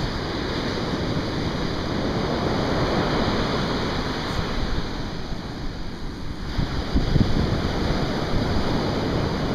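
Wind buffeting the microphone over surf breaking on the beach: a steady rushing noise with gusty low rumble that eases briefly about six seconds in.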